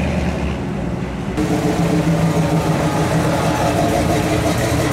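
Classic cars rolling slowly past at low speed, their engines running with a steady low note. About a second and a half in, the sound cuts to a different car's engine note.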